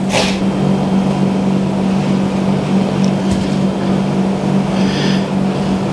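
A knife crunches through the crisp breadcrumb crust of a fried chicken katsu cutlet on a wooden chopping board, once sharply at the start and more faintly a couple of times later. A steady low hum runs underneath throughout.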